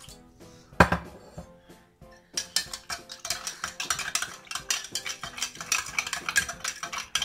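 A metal spoon stirring fast in a glass mug of drink, clinking rapidly against the glass, after a single sharp knock about a second in.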